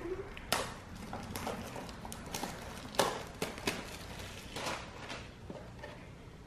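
Foil wrapper and small cardboard blind box being torn open and handled, making an irregular string of sharp crinkles and crackles, the loudest about three seconds in, thinning out near the end.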